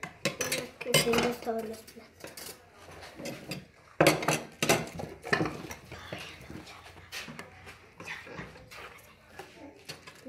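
Metal spoons clinking and scraping on ceramic plates as a soft mousse dessert is spooned out, in a run of irregular clinks, the loudest a sharp clatter about four seconds in.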